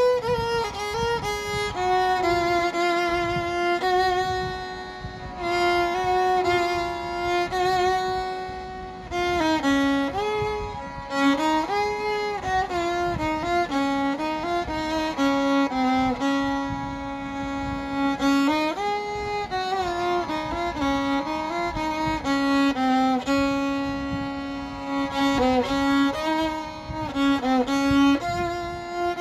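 Background music: a solo violin playing a slow melody with held, vibrato notes.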